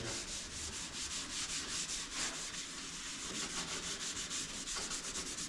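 Scotch-Brite pad with keying cream scrubbed in quick back-and-forth strokes over the wet painted metal of a car door, keying the surface ready for paint.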